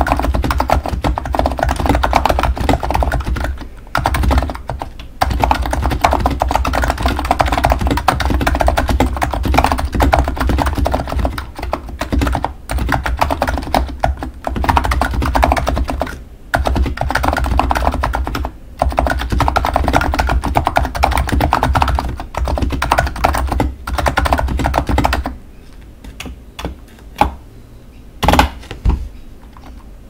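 Fast touch-typing on a Plum 87 electro-capacitive mechanical keyboard with tall SA-profile keycaps: a dense, rapid clatter of keystrokes with a deep thud under each press, broken by a few short pauses. About 25 seconds in the typing stops, and only a few single key presses follow.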